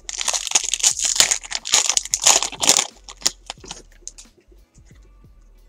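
Foil wrapper of a 2014 Elite Extra Edition baseball card pack being torn open and crinkled by hand for about three seconds, then a few light rustles and clicks as the cards are slid out.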